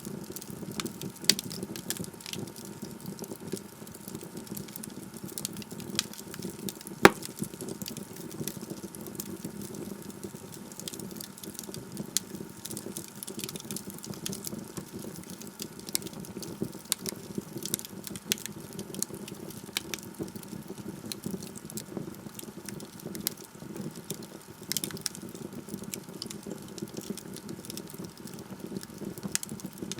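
Wood logs burning in a fireplace, crackling with frequent small irregular pops and one loud pop about seven seconds in.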